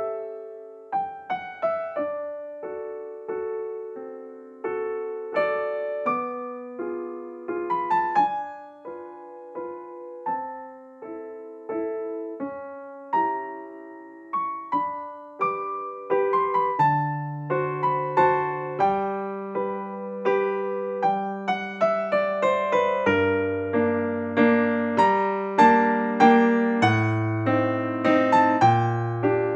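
Background piano music: a slow melody of single struck notes, each fading away. About halfway through, deep bass notes join in and the music grows louder and fuller.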